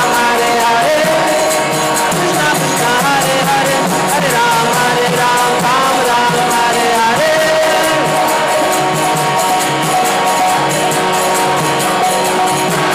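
Kirtan music: a harmonium playing the melody over a steady percussion beat.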